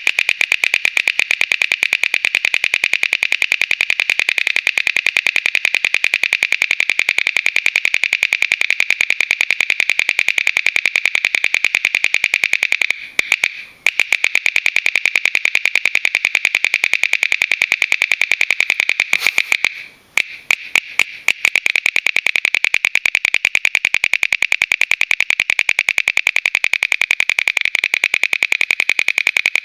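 Metal crown bottle cap held between the teeth, its small dent flexing in and out under steady bite pressure to make a very rapid, continuous train of loud clicks that blurs into a buzz. The clicking breaks off briefly twice, about 13 and 20 seconds in, restarting with a few separate clicks before settling back into the fast run.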